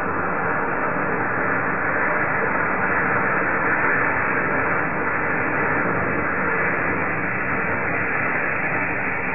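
Large firework rocket burning at its base, throwing out sparks with a steady hiss.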